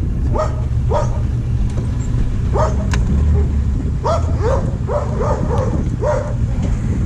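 A dog barking with short, high yelps, about nine of them, several in quick succession midway, over a car engine running steadily underneath.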